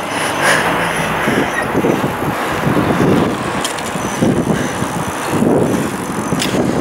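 Steady rush of wind and road noise on a moving microphone, with gusts buffeting it roughly once a second.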